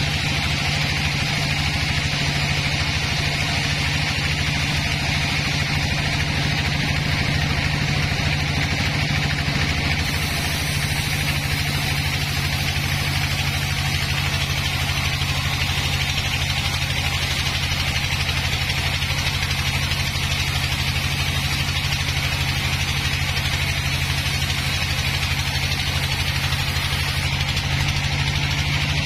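Horizontal band sawmill running steadily as its blade saws lengthwise through a log: a constant machine drone with a low hum under the hiss of the cut.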